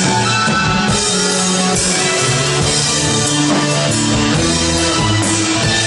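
A band playing, with guitar and drum kit.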